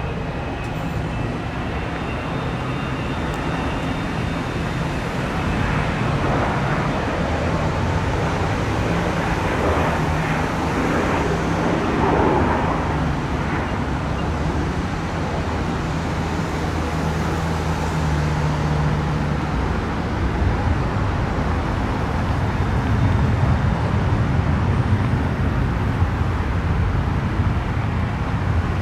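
Steady outdoor rumble of engines and traffic noise, with a low engine hum that shifts in pitch and swells for a while in the middle.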